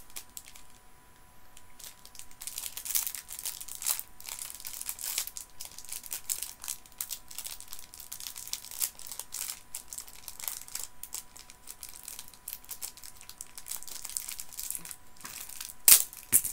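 Plastic sweet packet crinkling and crackling as it is handled and pulled at, a packet that is hard to open. A sharper, louder crackle comes near the end.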